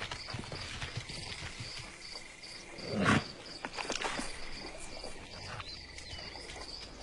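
Insects chirping in an even, pulsing rhythm, with one louder, lower sound about three seconds in.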